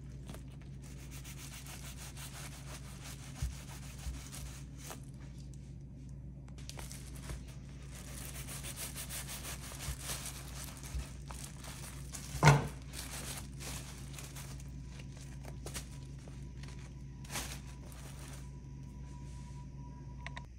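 A knife sawing through a braided challah loaf, the blade rasping back and forth through the crust, with the plastic bag under the loaf crinkling. A single sharp knock about twelve seconds in.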